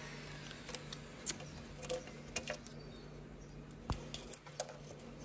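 Scissors snipping through fly-screen mesh as the excess is trimmed along the window frame: a scattering of small sharp clicks, irregularly spaced, over a faint steady hum.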